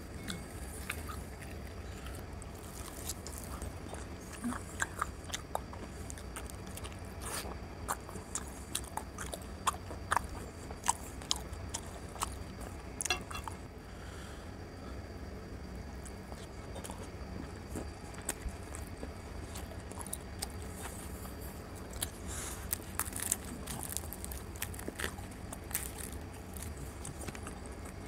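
Close-up chewing and biting of luchi, puffed fried bread soaked in curry: irregular short mouth clicks scattered throughout, over a steady low hum.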